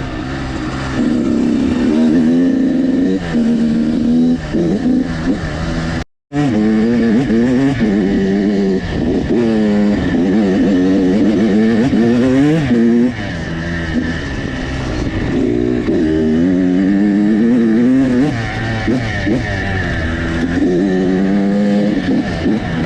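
Dirt bike engine under way on a trail, its pitch rising and falling again and again as the throttle is worked and gears are shifted. The sound cuts out completely for a moment about six seconds in.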